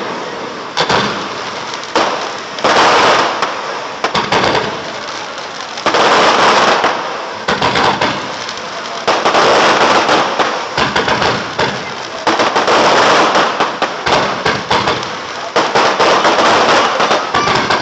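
Aerial fireworks display going off: a dense, unbroken run of bangs and bursting shells, surging every second or two.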